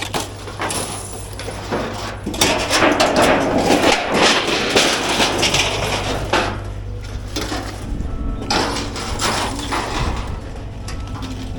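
Storm debris clattering and crashing in loud spells as it is moved, over a steady low engine drone.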